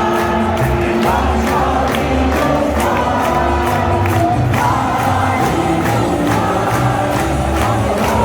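Music with a steady beat over the noise of a large crowd.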